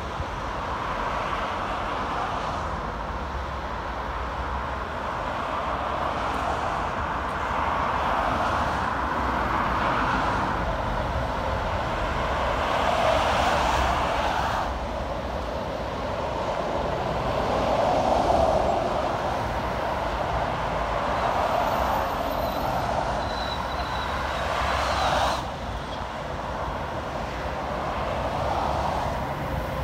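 Motorway traffic passing below: tyre and engine noise of cars and lorries swelling and fading as each goes by, with one passing vehicle's noise dropping away suddenly late on.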